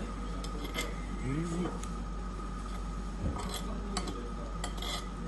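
Cutlery and dishes clinking a few separate times at a restaurant table, over a steady background hum.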